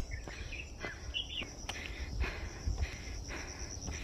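Insects trilling steadily at a high pitch, with a few short bird chirps and soft footsteps about every half second.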